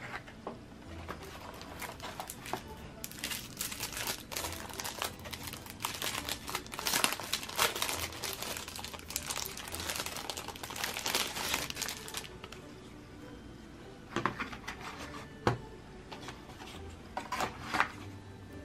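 Clear plastic bag crinkling as a small keypad is unwrapped from it, densest in the middle. Near the end it gives way to a few light clicks and knocks of handling the cardboard box.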